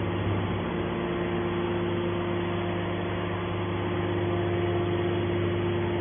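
Hydraulic metal baler's electric motor and hydraulic pump running, a steady hum, as the hydraulic cylinder swings the press-box lid closed.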